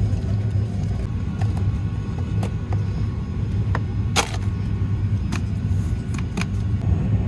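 Steady low rumble of an airliner cabin, with a series of short plastic clicks and knocks from a seatback tray table and its latch being handled, the loudest about four seconds in.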